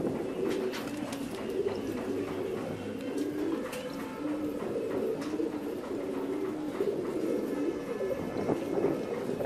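Several fancy pigeons cooing, their low warbling coos overlapping throughout, with a few light clicks mixed in.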